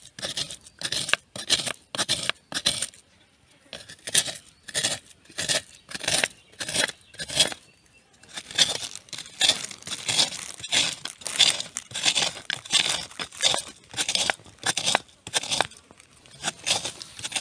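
Pestle pounding Mappillai Samba rice in a mortar to grind it into flour: repeated sharp strikes, about two a second, with brief pauses about three seconds in and again near eight seconds.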